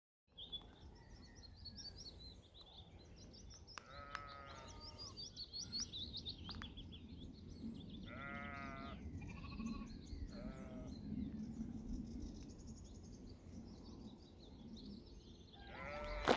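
Sheep bleating four times: once about four seconds in, then three calls in quick succession around eight to eleven seconds, each a short wavering call. Small birds chirp steadily underneath.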